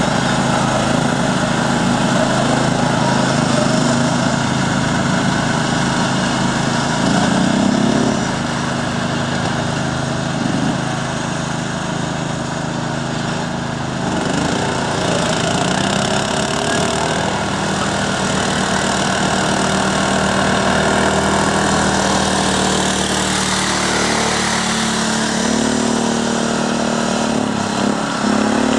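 Small riding lawn mower engines of about 13 horsepower, running under throttle as a steady drone that glides in pitch a few times.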